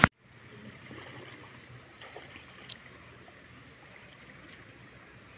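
A sharp click at the very start, then faint water sounds as a man wades in shallow floodwater, with a few small splashes and ticks.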